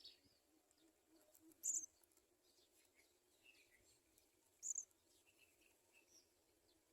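House sparrow giving two short high-pitched chirps about three seconds apart, with faint scattered chirping in between.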